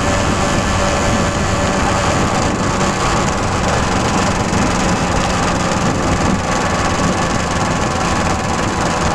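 Simson S51 moped's 50 cc two-stroke single-cylinder engine running at a steady, even speed.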